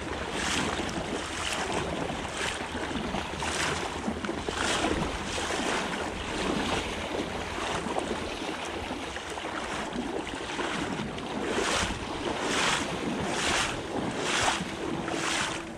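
Wading footsteps splashing through shallow flood water, about one step a second, over the steady rush of a river running high.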